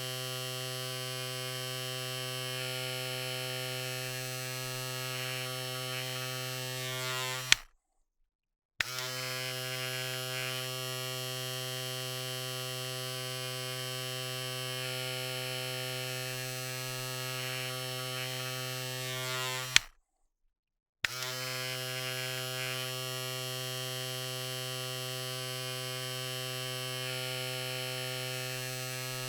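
Electric razor buzzing steadily, switched off about a quarter of the way in and back on about a second later, then switched off and on again about two-thirds of the way through; each switch gives a sharp click.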